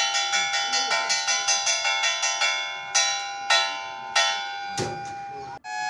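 Train operator's alert bell rung rapidly, about five strokes a second, then three slower strokes near the end, the ringing carrying between strokes: the departure warning for the museum's toy-train ride.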